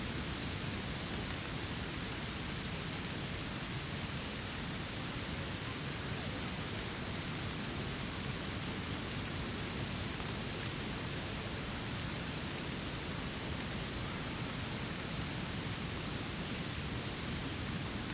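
Steady rain, an even hiss that does not change, with a couple of faint ticks.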